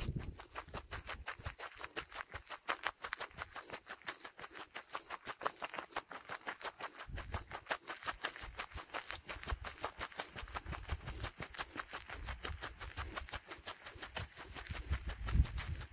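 Footsteps on a mountain trail: a steady run of quick, irregular crackles and scuffs underfoot, with a few low rumbles of movement noise.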